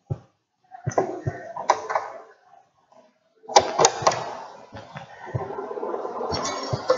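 Clicks, taps and scraping from a resistance wire and the brass terminal screws of a meter bridge being handled as the wire is fastened into one of the bridge's gaps. A denser run of clicks over a steady rustle comes in the second half.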